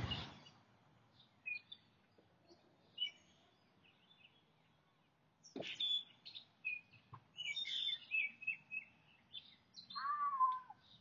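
Birds chirping outdoors in scattered short high calls, busiest in the second half, with a short downward-sliding call near the end. A sharp, loud noise sounds right at the start.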